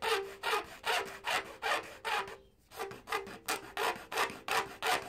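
Hand file rasping back and forth in the sawn notches at the end of a plastic tube, widening them: a steady run of scraping strokes, about two to three a second, with a short pause about halfway through.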